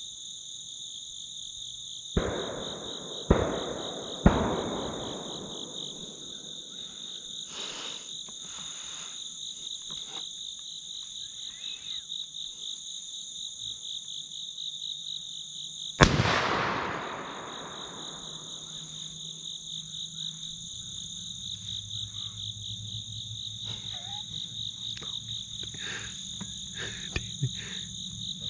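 Shotgun shots from dove hunters: three sharp reports in the first few seconds and a louder one about halfway through that echoes away. Under them a steady, high, pulsing insect chorus.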